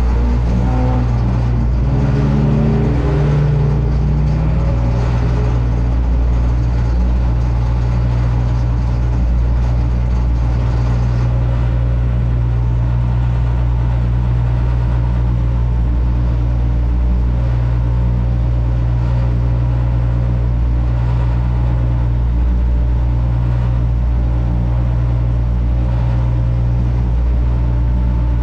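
1-litre stock car engine idling steadily, heard from inside the car's cabin, with some revving in the first few seconds before it settles.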